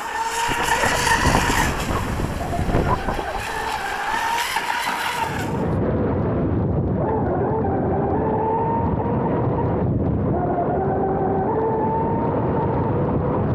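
Electric RC F1 tunnel boat running at speed: its brushless outboard motor gives a whine that wavers in pitch with the throttle, over the hiss of spray and wind. About six seconds in the sound changes to the view from on board, a duller, steadier rush of water and wind with the motor whine still wavering through it.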